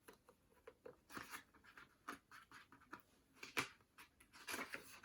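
Faint rustling, scratching and small clicks of book pages being handled, loudest about three and a half seconds in and again near the end.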